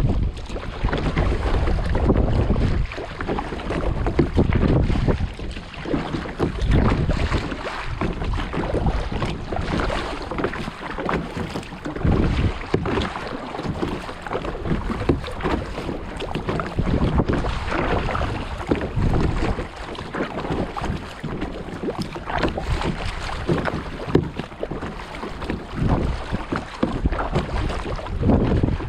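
Sea kayak paddled on gentle waves: irregular water splashes and lapping at the paddle and hull, with wind rumbling on the microphone.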